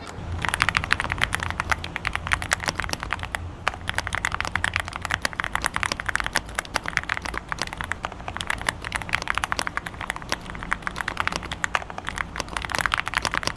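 Fast, continuous typing on an aluminium-cased mechanical keyboard, many keystrokes a second in an uneven stream, with the soft, smooth 'creamy' keystroke sound.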